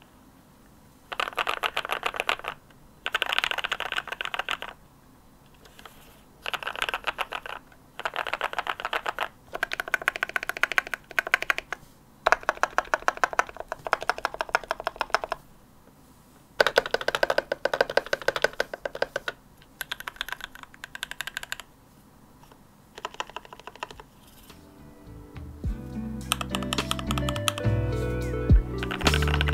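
Typing on a custom Idobao mechanical keyboard with a tape-modded, filled case, in bursts of a second or two with short pauses between. Lofi music with a beat fades in near the end under the typing.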